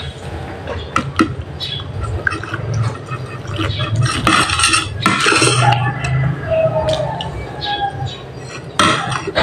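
Fork and spoon clinking and scraping against a plate as instant noodles are scooped up and eaten, in scattered sharp clicks.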